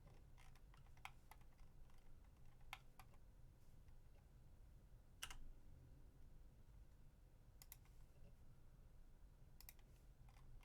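Faint, scattered clicks of a computer keyboard and mouse, irregular and a second or so apart, the sharpest about halfway through, over a low steady hum.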